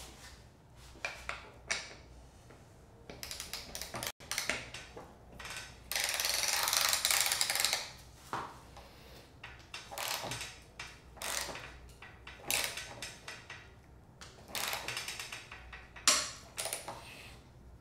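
Ratcheting torque wrench with a 10 mm hex bit clicking in short repeated runs as it is swung back and forth, tightening a crank arm bolt toward 40 Nm. A longer, louder run of clicks comes about six seconds in.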